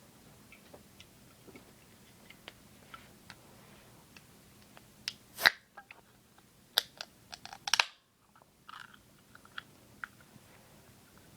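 Soft scattered clicks and mouth noises of someone drinking soda, with one sharp louder click about five seconds in and a quick run of clicks around seven seconds in.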